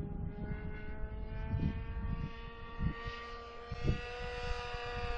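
Seagull Boomerang trainer RC plane in flight, its motor and propeller making a steady buzzing drone that rises slightly in pitch and grows louder toward the end. Wind buffets the microphone in low thumps.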